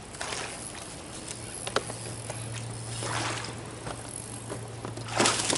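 A hooked peacock bass thrashing and splashing at the water's surface during the fight, with the loudest burst of splashing near the end. A low steady hum runs under the middle part.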